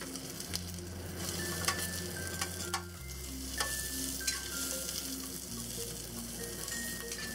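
Cubed onion sizzling in hot oil in a wok as it is stir-fried, with a spatula scraping and tapping against the pan now and then.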